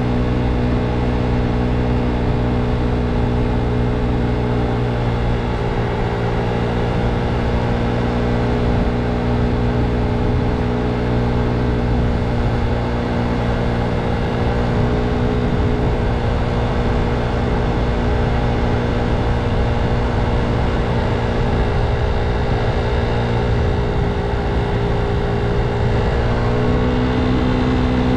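Motor scooter running at a steady cruise, its engine holding an even pitch that rises slightly near the end, with wind buffeting the microphone.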